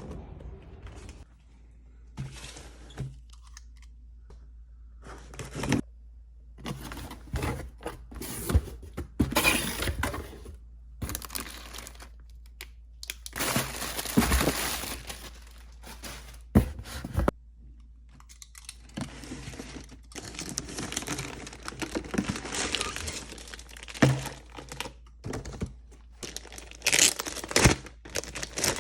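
Hands handling and tearing open packaging, with irregular crinkling and rustling, a longer tearing stretch about halfway through, and scattered sharp knocks of the box being handled.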